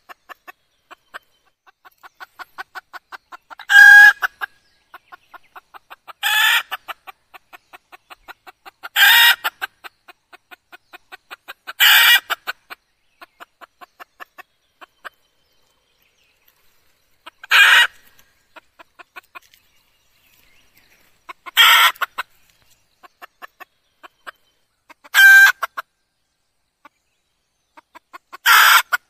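Red junglefowl hen calling: eight loud calls of about half a second each, spaced three to five seconds apart, with soft, quick clucks running between them.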